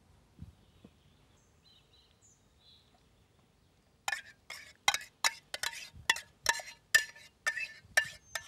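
Sharp clinks, about two to three a second, starting about four seconds in, as salt is shaken out of a ceramic salt box onto sour cream in an enamel cauldron.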